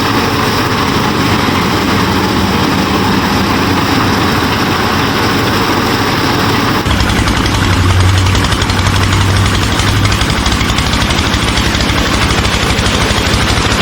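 A DIY miniature farm machine's motor running steadily. About seven seconds in the sound changes to a deeper run with a fast, even pulsing.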